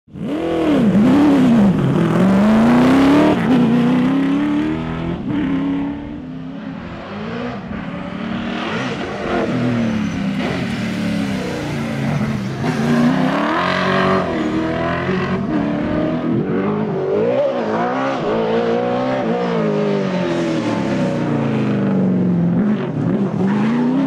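Holden HQ Monaro V8 driven hard: the engine revs rise and drop back again and again as it accelerates, changes gear and lifts off for corners. The loudest pass comes in the first few seconds.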